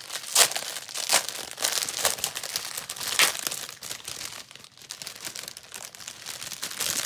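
Plastic packaging of a diamond painting kit crinkling and crackling as it is handled. It comes in irregular rustles with a few sharper, louder crackles, and goes quieter for a moment just past the middle.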